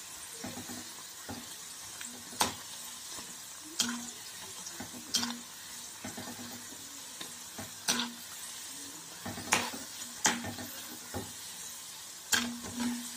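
Vegetable pakodas deep-frying in a kadai of hot oil, sizzling steadily, as a metal slotted spoon stirs them and knocks sharply against the pan about seven times. The pakodas are nearly done and well browned.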